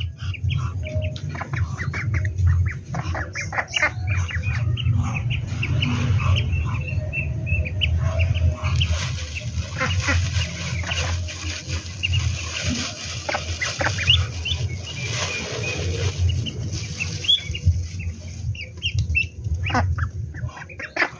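A brood of ducklings peeping over and over among adult ducks: many short, high calls one after another, with a steady hiss through the middle stretch.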